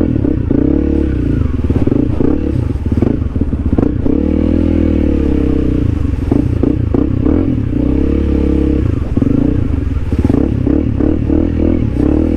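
Honda CRF300L's single-cylinder engine revving up and down over and over as the bike is ridden through mud, with scattered knocks and rattles from the bike.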